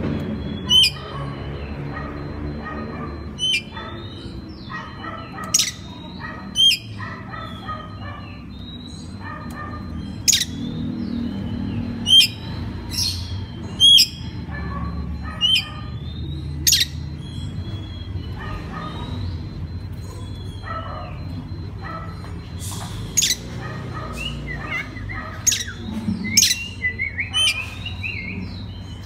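Oriental magpie-robin singing: a string of separate sharp whistled and chirped notes at irregular intervals, some sweeping steeply in pitch, over a steady low background hum.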